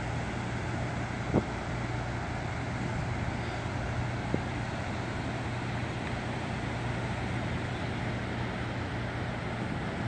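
Steady wind noise on the microphone over the even rush of surf breaking on the beach, with a low steady hum underneath and a couple of small clicks.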